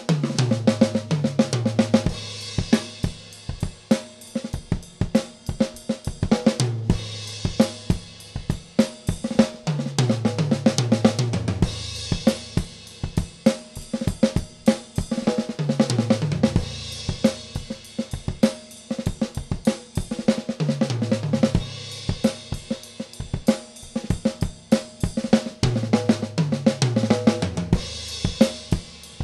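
Gretsch New Classic drum kit with a 14" Mapex Saturn snare played in a groove: bass drum, snare and hi-hat, broken several times by fills running down the 10", 12" and 14" toms from high to low pitch, each followed by a cymbal crash.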